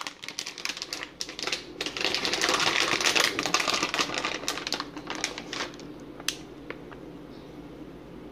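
Bacon bits being shaken out of a plastic bag onto a cheese-topped casserole, a dense run of fine rapid clicking that is heaviest in the middle and thins to a few scattered ticks after about six seconds.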